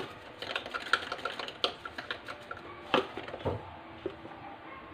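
Salt being shaken out of its container into a bowl of yogurt: a fast, irregular run of small rattling clicks for about two and a half seconds, then a sharper knock and a dull thud about three seconds in.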